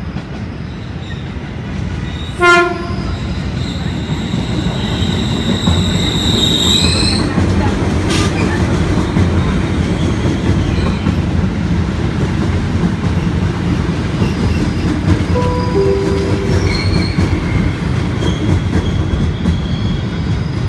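A commuter electric train pulling into the platform. A short horn blast comes about two and a half seconds in, followed by a few seconds of high-pitched wheel squeal. After that there is a steady low rumble as the cars roll past, with brief squeals near the end.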